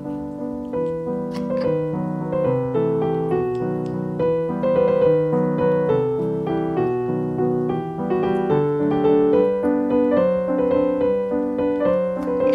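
Background piano music: a melody of separate notes over held lower chords.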